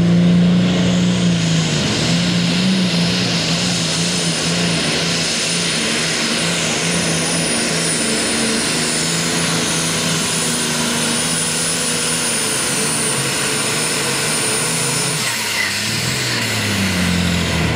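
Pulling tractor's diesel engine running hard at high, steady revs under full load as it drags the pulling sled, with a thin high whine over the engine note. About fifteen seconds in the whine stops and the engine note drops away, as the tractor comes off full power.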